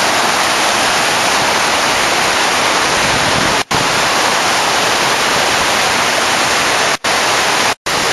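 Loud, steady rush of a waterfall and a stream tumbling over rocks. The sound cuts out for an instant three times in the second half.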